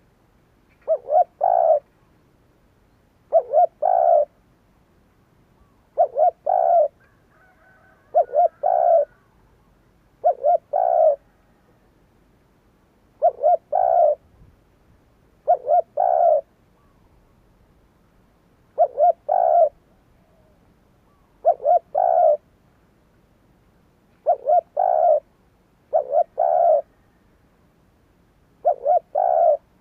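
Spotted dove cooing its song: a short phrase of two or three quick notes running into a longer coo, repeated about every two and a half seconds, twelve times.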